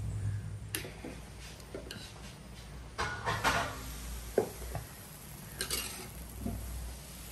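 Metal kitchen utensils clinking and scraping against cookware, with scattered sharp knocks; the loudest comes a little past the middle.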